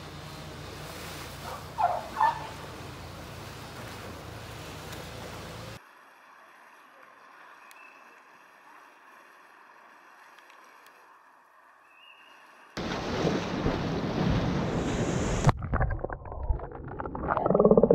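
Water in an Asian elephant's pool: a steady rushing with two short squeaks about two seconds in, then a much quieter stretch, then loud churning and splashing heard from under the surface as the elephant wades, in uneven surges near the end.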